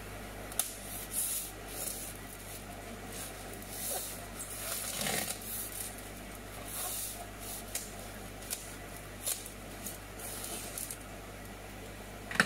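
A blade scraping and slitting the packing tape along the seams of a polystyrene foam box, in short irregular rasping strokes with a few small clicks. A sharp click near the end.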